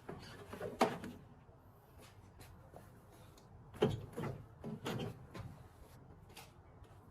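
A few dull knocks and clunks: one about a second in, then three close together around four to five seconds in, with faint small clicks between them.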